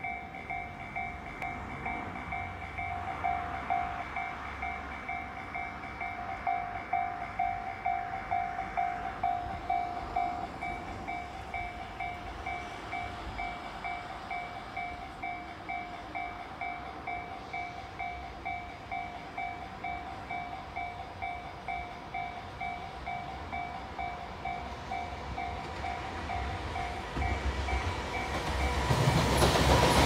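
Japanese level-crossing warning bell ringing steadily at about two strokes a second. Near the end an EF210 electric locomotive with its freight train comes up fast, its running noise swelling until it drowns the bell.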